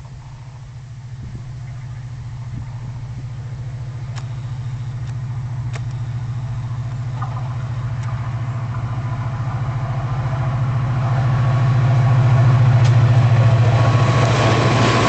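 Diesel locomotive engine running with a steady low hum, growing louder as the locomotive approaches and draws alongside. Near the end a hiss of wheels on the rails rises over the engine, with a few sharp clicks along the way.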